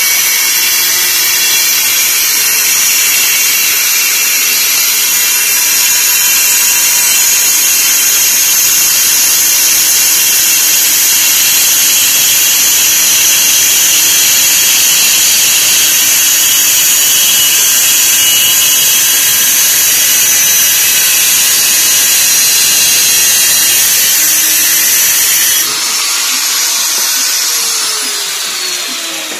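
Handheld power tool working a steel angle bar: a loud, steady, high-pitched grinding noise. Near the end the motor winds down with a falling whine.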